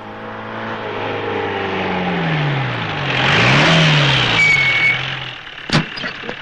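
Mahindra jeep engine running as the jeep drives up and pulls to a stop, growing louder, its pitch dipping and rising again midway, with tyre and road noise. A brief high squeal comes about four and a half seconds in, and a sharp clunk near the end.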